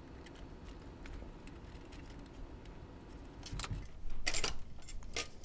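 Metal clicks and clinks from a small screwdriver and the sheet-metal body shell of a 1926 Lionel 152 O-gauge locomotive being worked off its frame. A louder rattle of metal comes about four seconds in as the shell comes loose.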